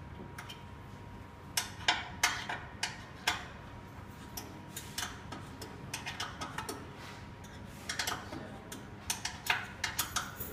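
Hex key turning screws in the plotter's metal frame: a string of small, sharp metal clicks and ticks coming in irregular bunches.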